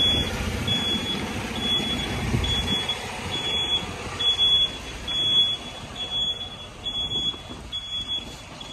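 A vehicle's reversing alarm beeping steadily, about one and a half beeps a second, over a low engine rumble that fades after about three seconds. Irregular scuffing noises that fit footsteps on the lot come and go.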